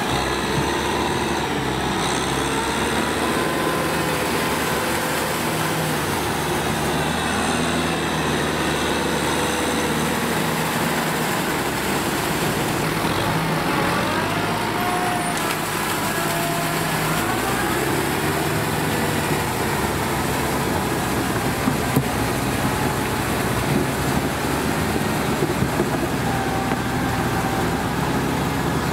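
Kubota M6040 tractor's four-cylinder diesel engine running steadily while pushing a blade through deep paddy mud, its pitch rising and falling with the load. A few short clicks or knocks come in near the end.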